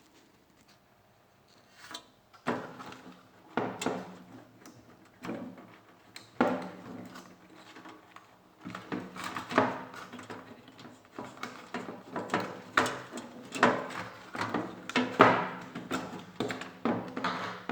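Repeated knocks, clicks and rattles of a microwave oven being handled and worked on, growing busier after a quiet start, over a faint low hum.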